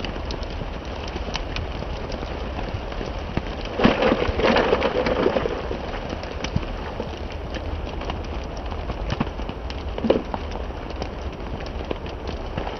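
Steady rain with many scattered drops ticking. A louder, denser clatter comes about four seconds in and lasts a second or so, and there is a single sharper knock about ten seconds in.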